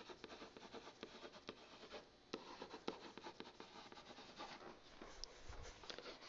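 Faint scratching and tapping of a pen writing by hand, in short irregular strokes, with a brief pause about two seconds in.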